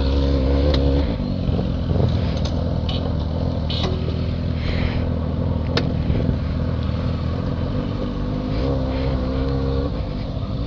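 Yamaha XJ6 motorcycle's inline-four engine running steadily at idle or low speed, with a few light clicks.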